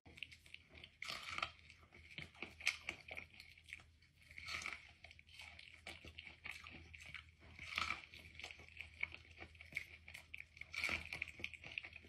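Faint, irregular crunching as kernels are bitten and chewed off an ear of corn on the cob by a cat and a person.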